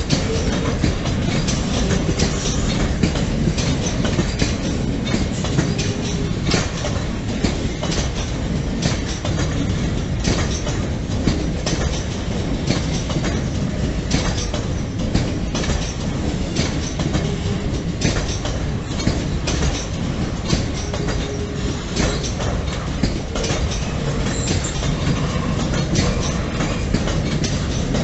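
Laaeks double-deck car-transport wagons of a freight train rolling past: steady wheel-on-rail rumble with frequent clicking as the wheels pass over rail joints.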